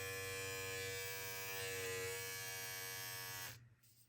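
Battery-powered electric body groomer (KENSEN, running on one AA cell) buzzing steadily while switched on. Its pitch dips briefly near the middle, and it is switched off about three and a half seconds in.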